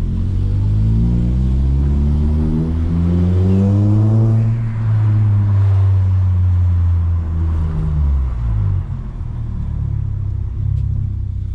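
Turbocharged VW Golf engine heard from inside the car, revving up with a rising pitch for about four seconds. Then the throttle closes with a hiss, and the engine settles to lower, steadier running that eases off further near the end.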